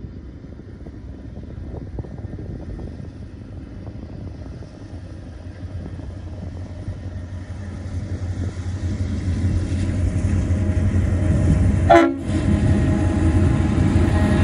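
Pacific National BL-class and 81-class diesel locomotives hauling a loaded grain train, approaching with an engine rumble that grows steadily louder. About twelve seconds in, a short horn toot.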